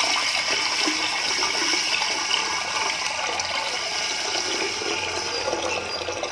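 A steady stream of water pouring into a glass jar that holds sugar, filling it toward a litre.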